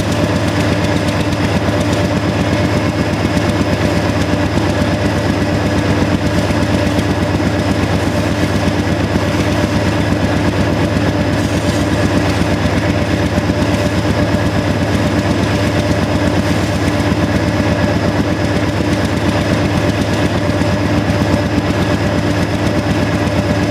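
GE AC4400CW diesel-electric locomotives running hard under heavy load pulling a double-stack freight: a dense, steady diesel exhaust beat with a constant whine over it.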